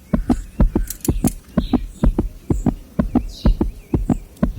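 Click-type torque wrench ratcheting in short strokes, sharp knocks about four or five a second, as a cylinder head bolt is pulled tight toward 72.5 ft-lb.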